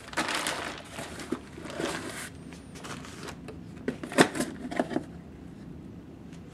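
Clear plastic bag crinkling as a bagged ration pack is handled and set down into a cardboard box, then a few light knocks and taps around four to five seconds in.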